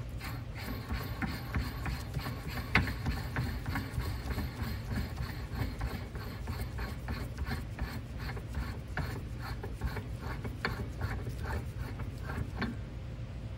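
Steel quill nut being turned by hand along a threaded lead screw to test the fit of its freshly cut 1¼-12 thread: metal threads rubbing, with irregular light clicks several times a second over a steady low hum.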